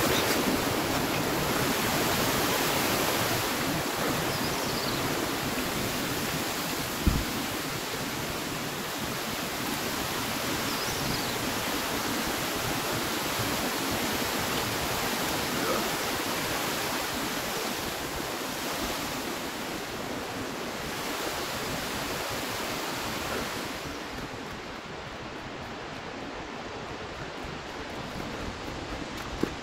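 Steady rushing of a mountain stream, with one brief thump about seven seconds in. The rush turns duller and a little quieter for the last few seconds.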